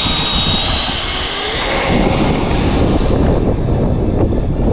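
Electric ducted fan of a Freewing F-16 90mm 8S RC jet whining, its pitch rising over the first two seconds as the throttle goes up, then holding steady and high, over a low rumble of wind noise.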